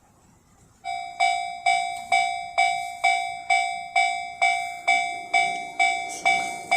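Japanese railway level crossing warning bell starting up about a second in and ringing about twice a second, each stroke a bright ding that decays quickly. A low rumble joins in near the end.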